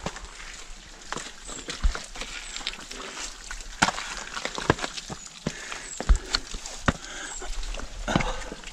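Hiker's boots stepping and scraping on a steep wet rock slab during a scramble, with scattered sharp knocks and scuffs against the rock.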